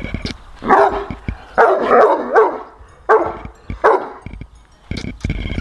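Large mastiff-type guard dog barking behind a wire fence: about five barks in four clusters over three seconds, a pair close together in the middle, then silence from the dog near the end.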